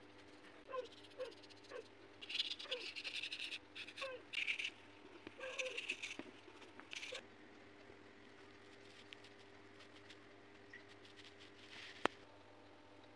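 Paintbrush scrubbing black paint onto watercolour paper in short hissy bursts of dry-brush strokes, with several short falling squeaks early on and a single sharp click near the end, over a faint steady hum.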